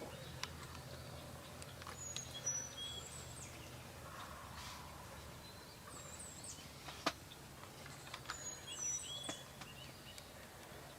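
Wild turkey gobbler gobbling, with the rough gobble about four seconds in, while songbirds chirp high and a single sharp click sounds about seven seconds in.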